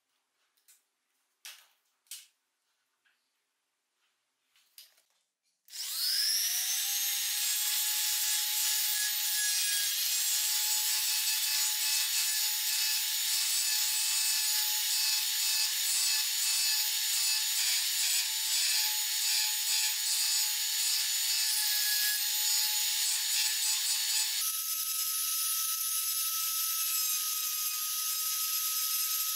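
A small handheld rotary tool spins up and carves a groove into a wooden handle slab along a traced line, a steady high motor whine over a rough cutting noise. The whine steps up in pitch about two-thirds of the way through. A few faint clicks come before it starts.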